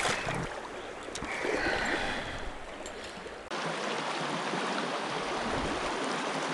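Creek water rushing over a shallow riffle, steady and even after a cut about three and a half seconds in. Before the cut there is splashing around a wading angler and a sharp knock at the very start.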